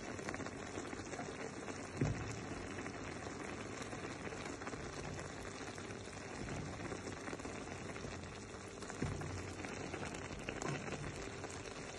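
Chicken livers simmering in their cooking liquid in a nonstick frying pan: a steady bubbling hiss. A wooden spoon stirring them knocks a few times against the pan, most sharply about two seconds in.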